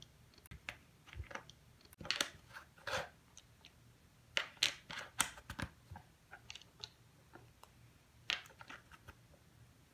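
Small plastic interlocking building blocks being pressed together and handled on a tabletop: irregular soft clicks and taps, with a cluster of louder clicks about halfway through and another near the end.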